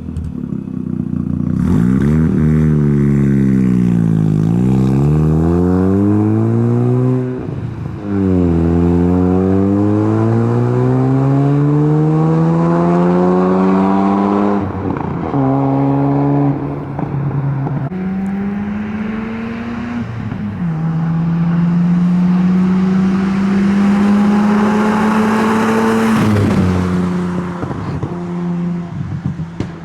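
Mazda RX-7's naturally aspirated two-rotor 12A rotary engine through a cat-deleted exhaust and cheap muffler, pulling hard. Its pitch climbs through the revs several times, dropping sharply at each gear change, then holds steady for a while and falls away as the throttle is lifted near the end.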